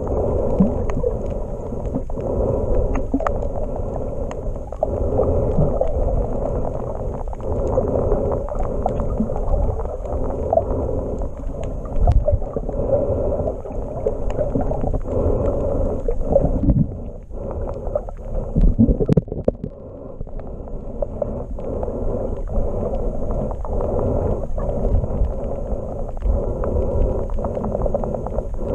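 Muffled underwater water noise picked up by a camera held underwater: a steady low rumble and swish with scattered sharp clicks.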